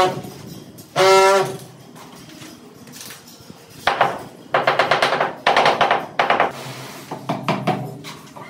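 Handheld tile vibrator buzzing in bursts as it beds large floor tiles: two short, even-pitched buzzes near the start, then several longer rattling bursts in the middle.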